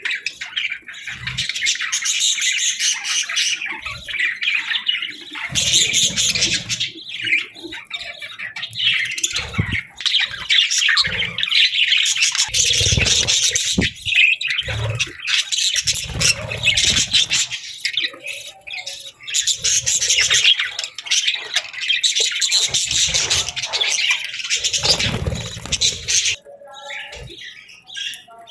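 Budgerigars chattering and warbling in a dense, continuous stream of chirps and squawks, with some lower rustling noises now and then. The chatter thins out near the end.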